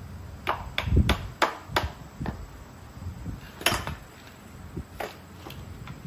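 Irregular sharp knocks and clicks of hand tools and hard parts being handled during repair work, several in quick succession in the first couple of seconds, then a louder knock about midway and a few lighter taps later.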